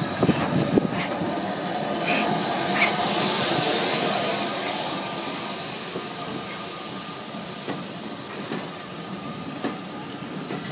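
LNER B1 4-6-0 steam locomotive and its coaches moving past, with a loud hiss of steam that swells to a peak about three to four seconds in and then fades. A few clanks come in the first second, and occasional clicks follow as the coaches roll by.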